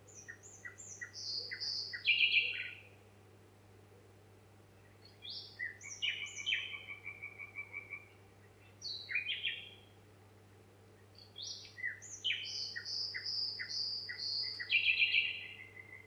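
A songbird singing four phrases of quick notes that step down in pitch, some phrases ending in a fast trill, with short pauses between them.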